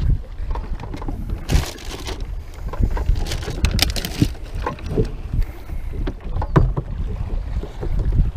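Wind rumbling on the microphone over a boat rocking on open water, with a string of knocks and rattles, mostly in the first half, as a hard-sided cooler lid is opened, a fish is dropped inside and the lid is shut.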